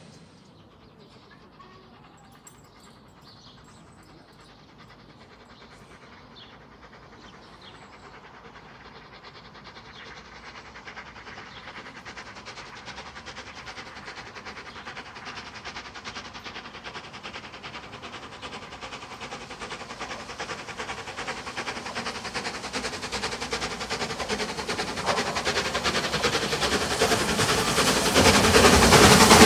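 LMS Black Five 4-6-0 steam locomotive 44871 approaching with its train, working steam, getting steadily louder until it is close and loud near the end.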